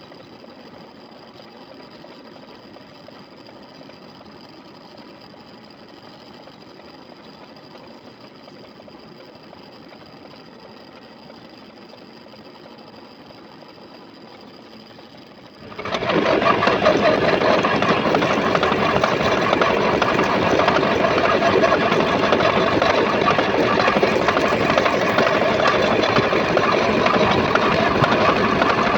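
Metal lathe running: a faint steady hum with a thin high whine, then a little past halfway it suddenly becomes much louder and stays steady, the sound of the machine running at speed or cutting.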